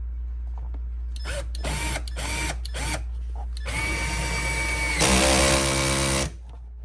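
Power drill driving in a fastener: a few short trigger pulls that spin up and wind down, then a longer steady run that gets louder for about a second and stops abruptly.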